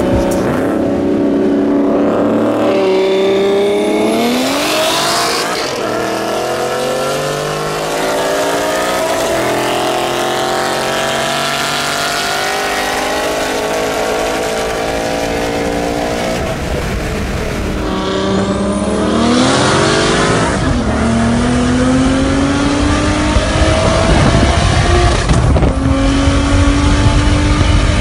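A tuned BMW 135i's turbocharged straight-six accelerating hard at full throttle, heard from inside the cabin. The engine pitch climbs through each gear and drops at several quick upshifts, over loud wind and road noise.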